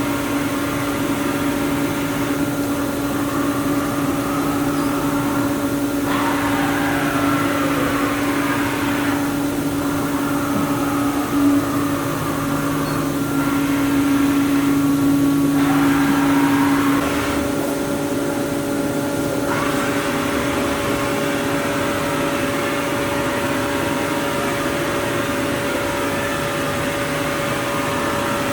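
AVEA BM 1600 vertical machining center running under power: steady motor whines with a hiss that starts and stops every few seconds. A falling whine comes about seven seconds in, and the main whine jumps to a higher pitch about two-thirds of the way through.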